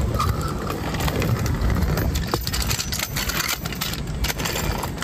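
Hand pressure roller being rolled back and forth over self-adhered roofing flashing, pressing the seam down, with scattered light clicks. A steady low rumble runs underneath.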